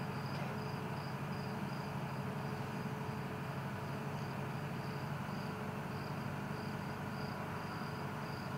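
Insects chirping in a steady high pulse, about two chirps a second, over a low steady hum.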